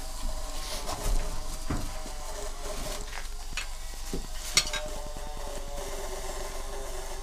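Plastic sheeting rustling and crinkling as it is handled and pulled back, with a few short clicks and light knocks.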